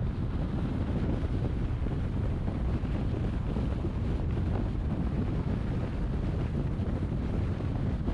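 Car driving at road speed: a steady rumble of tyre and wind noise, strongest in the low end, with no changes.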